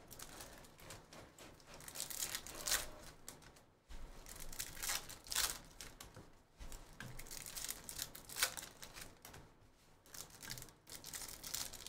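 Foil trading-card pack wrappers being torn open and crinkled by hand, with cards slid out and handled: a string of short, irregular rustles and crinkles.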